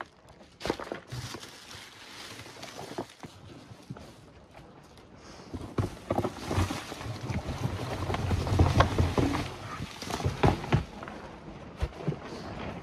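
Dry leaves and clumps of leaf mold rustling and crackling as they are handled and tipped from a plastic bucket into a plastic tote, with scattered knocks of the plastic containers. It is loudest about six to eleven seconds in, as the bucket is emptied.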